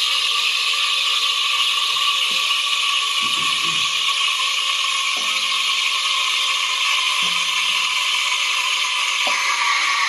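Steam wand of an Elektra Indie espresso machine's Montalatte automatic frother hissing steadily as it froths milk, its pitch sinking slightly near the end. A few soft knocks come through it.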